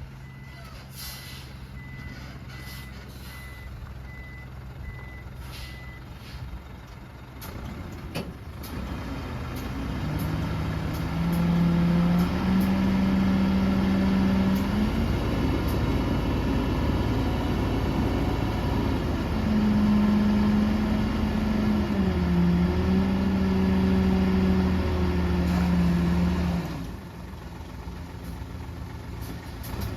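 Reversing alarm beeping at an even pace over a running diesel engine for the first few seconds. Then a heavy diesel engine revs up hard and holds at high revs, its pitch stepping up and down, before dropping back suddenly near the end.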